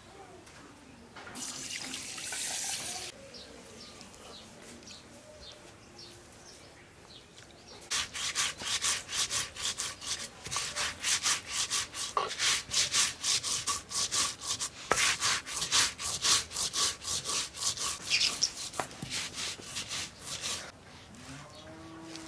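Mustard seeds being ground by hand on a flat stone slab with a stone roller (shil-nora), a run of quick, regular scraping strokes that starts about eight seconds in and stops shortly before the end. A brief rustle comes about a second in.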